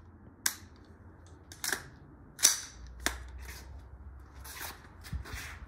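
Colt AR-15-style 9mm carbine being handled and readied to fire: several sharp metallic clacks, the loudest about two and a half seconds in.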